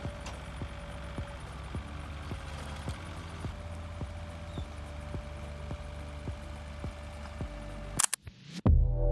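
Farm machinery running steadily, a low engine rumble with a regular clicking about three times a second. The sound cuts off abruptly about eight seconds in, replaced by a louder, different sound.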